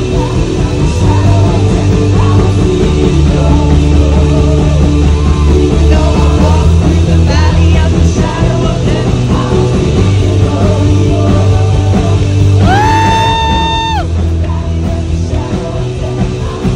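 Background music: a song with sung vocals over a heavy, steady bass, with one long held note about thirteen seconds in.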